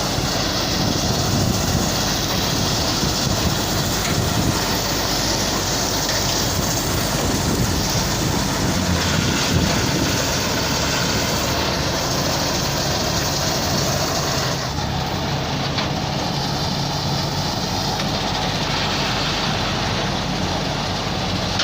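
Preet combine harvester running under load: steady engine drone mixed with the clatter of its cutting and threshing machinery. The sound shifts abruptly partway through.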